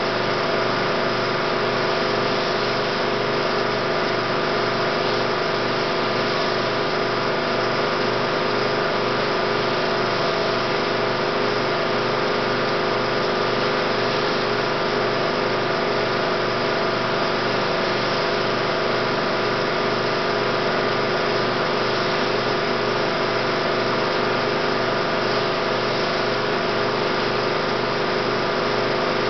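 16mm film projector running: a steady mechanical whir with a fast, even flutter from the film transport, unchanging throughout.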